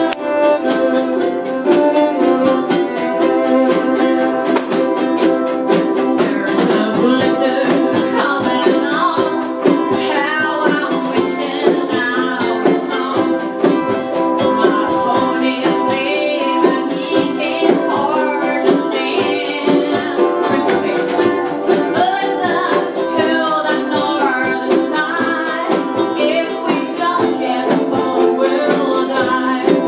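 A group of strummed acoustic string instruments playing a song in a steady rhythm. Voices join in singing from about seven seconds in.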